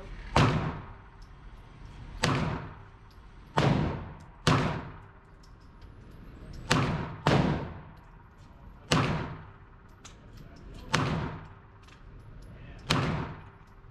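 Gunshots fired irregularly in an indoor shooting range, about nine in all, some in quick pairs. Each is a sharp crack with a short echoing tail off the range walls.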